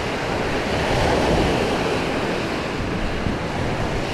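Surf washing onto a sandy beach, a steady rush of breaking waves with wind buffeting the microphone, swelling slightly about a second in.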